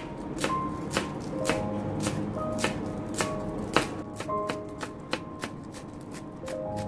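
Chef's knife chopping spring onions on a wooden cutting board: sharp, irregular knocks about two a second, some fainter, over background music.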